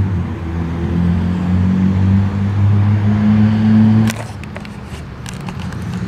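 A loud, low engine drone holding a steady pitch that steps up slightly about a second in, then cuts off suddenly about four seconds in, leaving a softer background with a few clicks.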